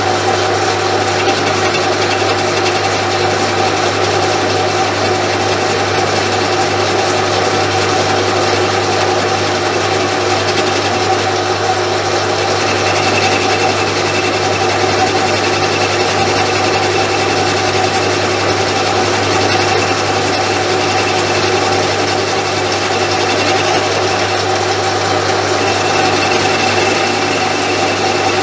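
Metal lathe running steadily under power, spinning a workpiece held off-centre in the chuck by an adjustable jaw. A thin high whistle comes in about halfway through, fades, and returns near the end.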